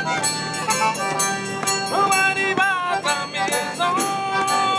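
Cajun fiddle and Cajun button accordion playing a lively tune together, the fiddle sliding up into long held notes over the accordion's rhythmic chords.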